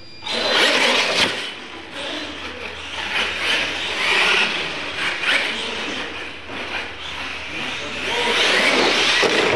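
Scale radio-controlled monster trucks launching off the start line and racing across a concrete floor, starting suddenly. A steady rush of motor and tyre noise carries a couple of sharp knocks and swells louder again near the end.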